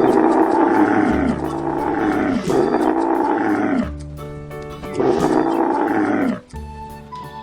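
Camel calls: three long, loud grumbling bellows, each dropping in pitch at its end, over background music with steady notes.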